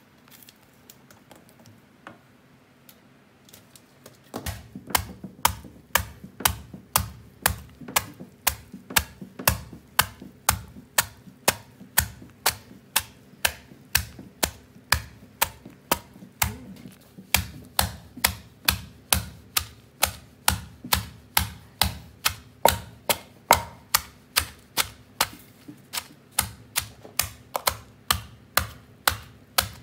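Wooden pestle pounding raw tamarind pods in a granite stone mortar, crushing them coarsely: dull knocks in a steady rhythm of about two strikes a second. The pounding starts about four seconds in and pauses briefly around the middle.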